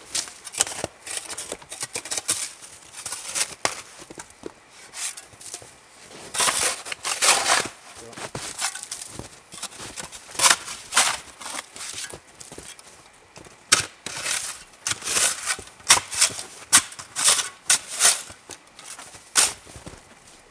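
Hatchet chopping into wood, mixed with boots crunching through snow: a string of sharp, irregular knocks and crunches.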